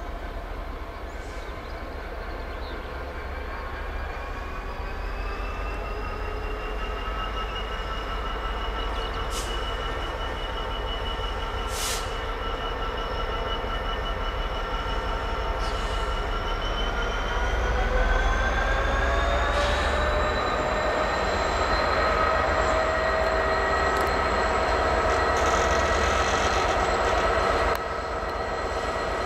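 Class 66 diesel locomotive's two-stroke V12 engine working as it hauls loaded wagons at low speed, with a steady engine rumble and a high whine that rise in pitch about two-thirds of the way through as power is opened up. A few short metallic clanks from the train.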